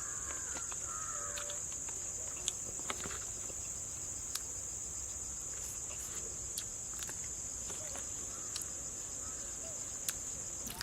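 Steady, high-pitched drone of insects, with a few faint scattered clicks.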